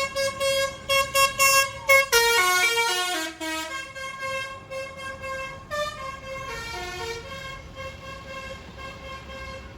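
Tour bus 'basuri telolet' melody horn playing: a rapid run of short toots for about two seconds, then a stepped tune of changing notes that grows fainter.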